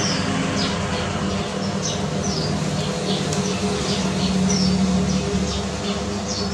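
High-pitched chirping: short falling peeps, about two a second and irregular, over a steady low hum.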